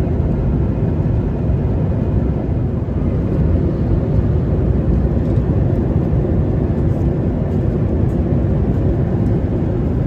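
Steady cabin noise inside a Boeing 737-900ER in flight: an even, deep rumble of engine and airflow noise with no change in level.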